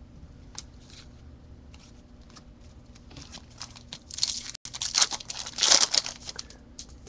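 A trading card pack's wrapper torn open and crinkled, in loud ripping bursts about four seconds in, after a few faint clicks of cards being handled.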